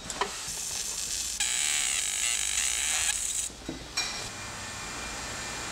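Laser marking machine engraving a part number into an aluminium water pump housing: a buzzing, warbling whine lasting about two seconds, with a few clicks before and after it.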